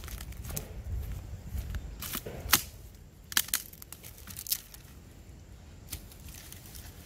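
Dry sticks and branches cracking and snapping as they are handled and stepped on, with a few sharp cracks between about two and four and a half seconds in and one more near six seconds.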